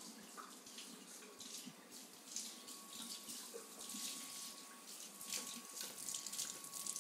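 Kitchen faucet running into the sink, growing louder toward the end, with the stream splashing over a carrot being rinsed under it.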